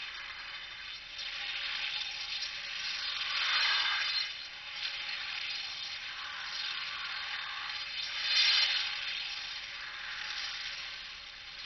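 Chatter ring's beads whirring and rattling around the metal hoop, a steady rasping buzz that swells and fades as the ring is swung and flipped over the back of the hand again and again, loudest about three and a half and eight and a half seconds in.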